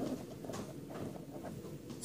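Faint low room noise in a classroom, with no distinct event.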